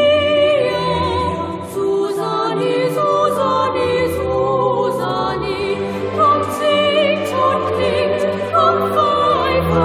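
Background music: voices singing in a classical, choral style with vibrato over instrumental accompaniment.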